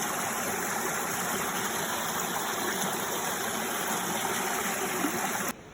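River water rushing, a steady, even hiss, which drops away sharply near the end.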